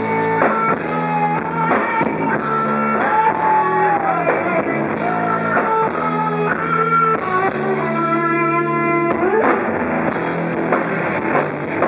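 Live rock band playing: electric guitars and bass over a drum kit, with notes bending up and down in pitch.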